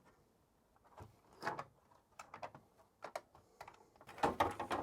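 Light plastic clicks and knocks of a computer keyboard and its case being handled and fitted together, scattered at first and coming thick and fast near the end.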